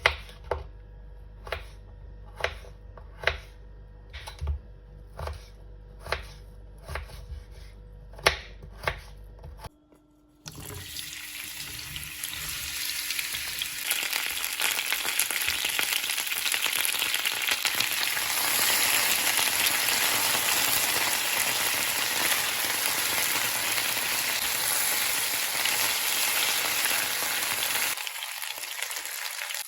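A knife cuts through vegetables on a cutting board in about a dozen evenly spaced strokes, roughly one a second. Then, after a brief break, potatoes sizzle steadily as they fry in oil in a pan, and the sizzle eases off near the end.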